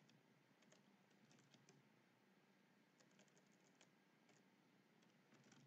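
Very faint typing on a computer keyboard: scattered key clicks in a few short runs, with near silence between them.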